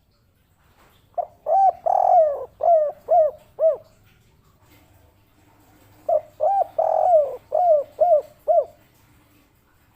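Spotted dove (tekukur) of the 'kuk 3' song type cooing: two phrases of about six short hooting notes each, with one longer drawn-out note third in each phrase.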